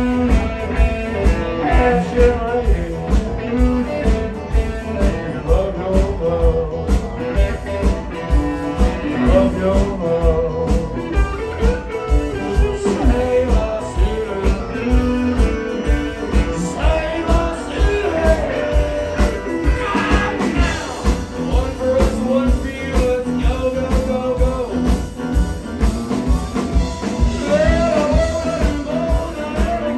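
Live rock band playing a blues-rock number, with drums keeping a steady beat, electric guitar and a male singer.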